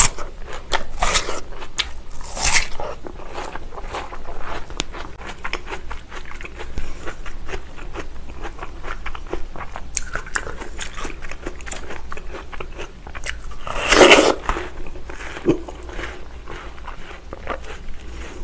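Crisp watermelon being bitten and chewed: a steady run of wet, irregular crunching, with one louder burst of crunching about fourteen seconds in.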